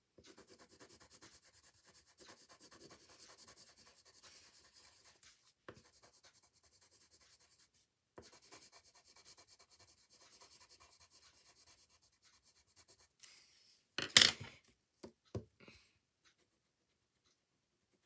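Orange pencil crayon scratching on paper in many quick strokes as a drawing is coloured in. Near the end a loud sharp knock, then two lighter taps.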